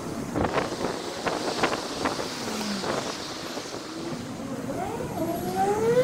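Road traffic heard on a walk, with a run of short knocks in the first half and a vehicle engine note gliding up in pitch near the end.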